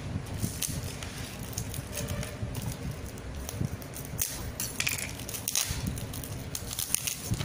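Parcel packaging being torn and pulled open by hand, with irregular crackling and crinkling throughout.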